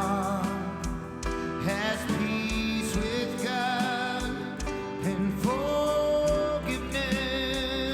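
Church worship band playing: a voice holds long, wavering notes over acoustic guitar and a steady beat.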